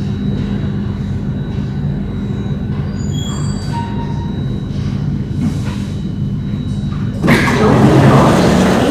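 Singapore MRT train standing at the platform, its onboard equipment giving a steady hum. About seven seconds in, a louder rushing noise sets in and lasts about two seconds.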